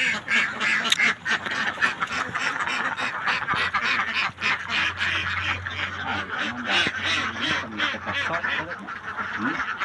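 Ducks quacking continuously, many short rapid calls running together.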